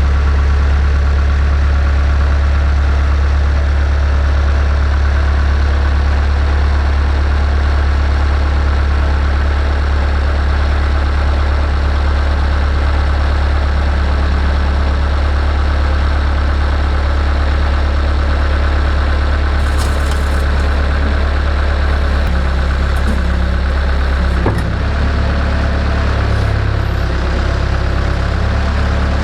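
Bobcat skid steer loader's engine running with a steady low drone, its tone and level shifting slightly about 24 seconds in.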